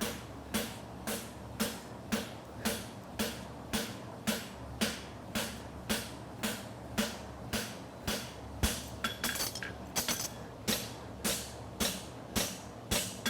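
Blacksmith's hammer striking a hot steel bar on an anvil in steady ringing blows, about two a second, scarfing the end of the bar for a forge weld, with a short run of lighter taps about two-thirds of the way through.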